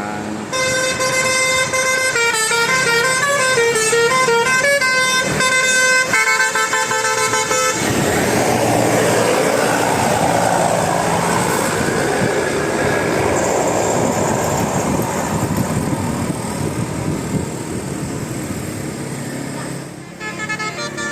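Bus telolet musical horn of the Basuri type playing a multi-note melody for about seven seconds, its notes stepping up and down. A loud rushing noise follows for about twelve seconds, and the horn's notes start again just at the end.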